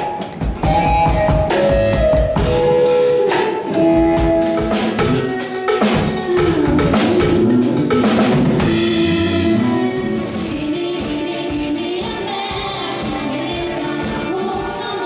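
A live pop band playing: a drum kit and electric guitar with singing. About ten seconds in the drumming eases and the music gets a little quieter, with sustained voices and instruments carrying on.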